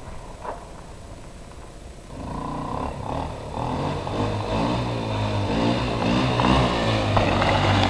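ATV engine running, getting much louder from about two seconds in, its pitch rising and falling as the throttle is worked.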